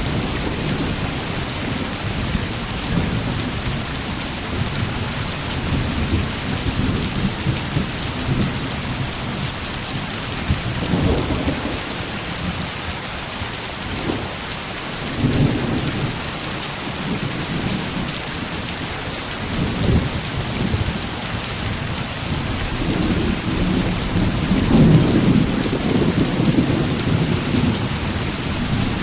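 Heavy rain falling in a steady hiss, with low rumbles of thunder swelling up several times, the loudest near the end.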